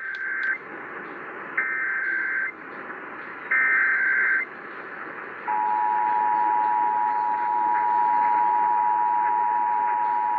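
Emergency Alert System SAME header: three one-second bursts of buzzy digital data tones, then about five and a half seconds in the steady two-tone EAS attention signal starts, received over radio with a background hiss. It marks the start of a Required Monthly Test alert being relayed.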